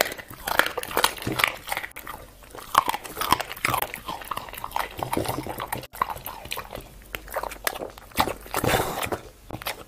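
A dog biting and chewing a slice of raw beef held out by hand, irregular chewing and biting sounds coming in quick uneven succession.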